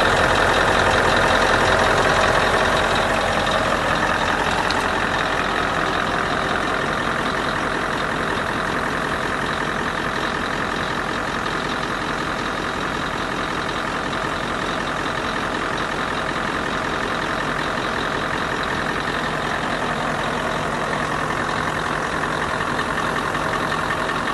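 Scania R620's 16-litre V8 diesel idling steadily, a little louder for the first few seconds and then even.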